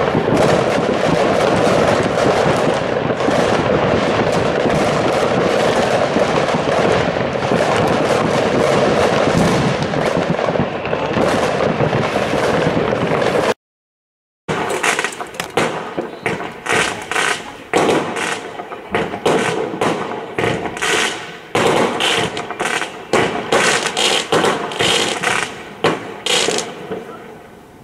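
Fireworks going off in a dense, continuous crackling barrage. It stops dead for about a second. Then comes a quick, irregular run of separate sharp bangs and pops that thins out near the end.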